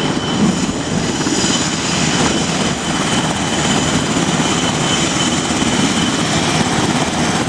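SH-60F Seahawk helicopter's rotor and turbines running in a steady loud roar, with a faint high whine over it.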